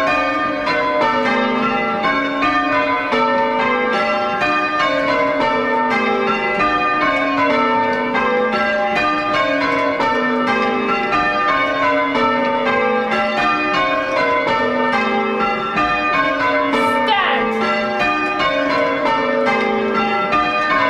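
Church bells rung full circle from the ropes in change ringing: rows of bells struck one after another in a steady rhythm, each row stepping down in pitch.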